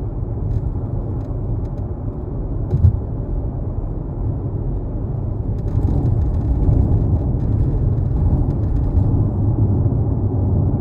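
Mazda CX-5 driving: steady low road and engine rumble, with a single short knock about three seconds in.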